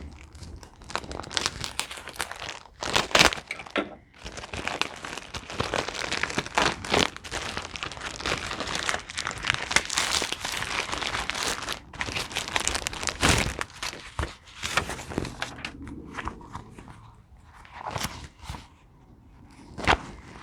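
Paper and packaging crinkling and rustling, with scattered clicks and a few louder knocks, as a table saw's instruction manual is dug out and handled.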